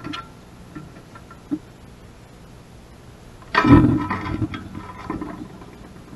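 American robin's wings fluttering in a sudden loud burst about three and a half seconds in as it flies in to a hanging plastic tray feeder, followed by a few softer knocks and rustles as it lands on the tray's rim.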